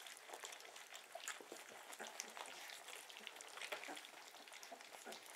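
A litter of Cane Corso puppies eating soft food from a shared pan: faint, irregular wet lapping and smacking clicks.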